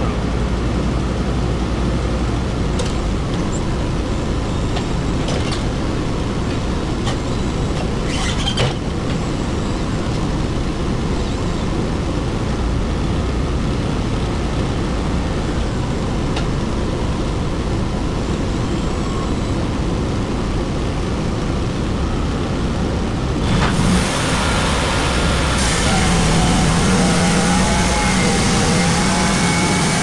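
Wood-Mizer LT35 sawmill's engine running steadily, with a single knock about eight seconds in. Near the end it gets louder and a steady whining note joins as the mill is put to work.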